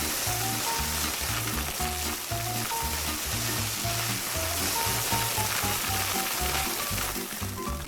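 Background music with a steady, repeating bass line and short melody notes, over an even hiss like sizzling or pouring grit.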